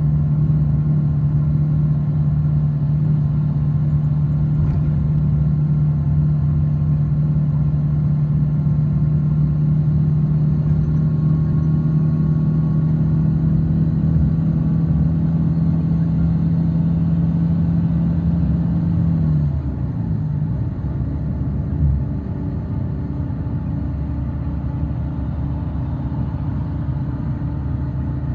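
A moving road vehicle heard from inside its cabin: a steady engine hum over road rumble. About two-thirds of the way through, the engine note falls in pitch and the sound gets a little quieter.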